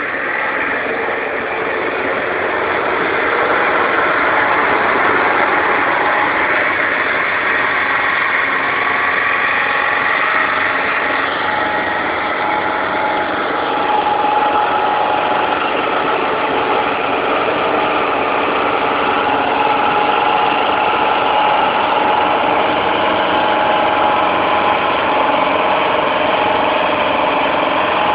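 Mercedes-Benz 814 light truck's diesel engine running under load as the truck is drifted on snow, its note swelling over the first few seconds and then holding with slow shifts in pitch.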